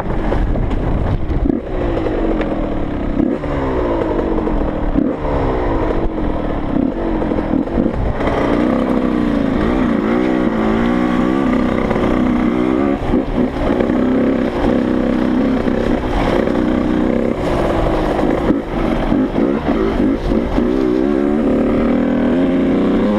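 Dirt bike engine under way, revving up and dropping back as it shifts through the gears, its pitch rising and falling over and over.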